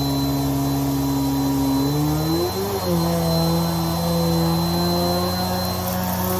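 Vacuum cleaner running steadily with a motor hum and a thin high whine; its pitch wavers and steps up about two and a half seconds in, as the load on the motor changes.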